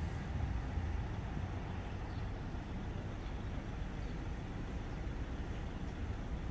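Steady low rumble of road traffic, with no train passing.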